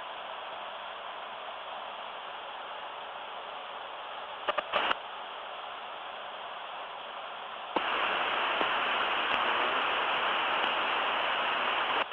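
Steady cockpit voice recorder hiss from the Embraer Legacy 600's cockpit, with a couple of short clicks a little before the middle. Near eight seconds a louder burst of radio static comes in, holds steady for several seconds, then cuts off suddenly.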